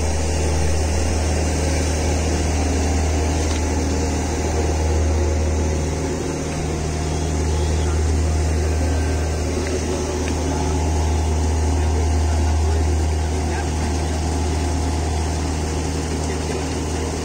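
Sewage treatment plant machinery (pumps and aerators) running with a steady, loud low hum, over the rush of churning water in the tanks.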